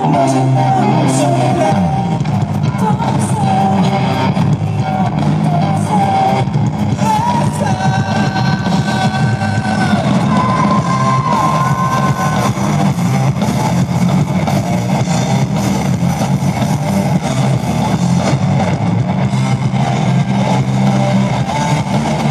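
Live rock band playing loudly, with electric guitars, drums and a sung vocal line.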